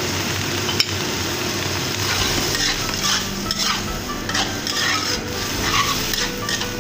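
A spatula stirring shirataki noodles and salted vegetables in a sizzling pan, with a sharp click about a second in and repeated scraping strokes through the second half.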